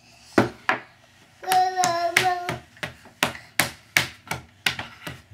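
Toddler's hands slapping a wooden tabletop in a quick, rhythmic run of about three slaps a second. A child's voice holds a short sustained note over the slaps about a second and a half in.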